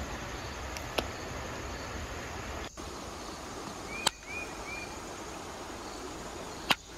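Quartzite being flintknapped: three sharp, single cracks of stone striking stone as flakes come off, about one, four and nearly seven seconds in, over a steady background hiss.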